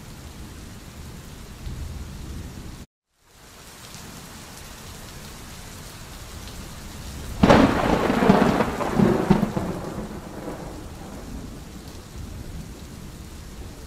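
Steady rain with a thunderclap about halfway through: a sudden sharp crack that rolls off into rumbling over a few seconds. Near the start, the sound cuts out completely for a fraction of a second.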